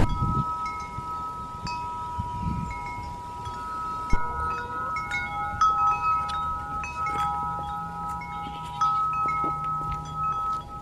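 Hanging metal chimes ringing, struck again and again so that several long, steady tones overlap. A faint low drone joins in for a few seconds near the end.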